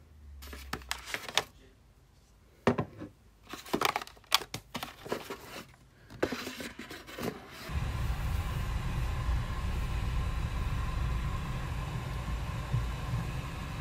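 A cardboard gift box and cosmetic jars being handled on a table: scattered knocks, taps and rustles. About eight seconds in this gives way to the steady low rumble of a car, heard from inside the cabin.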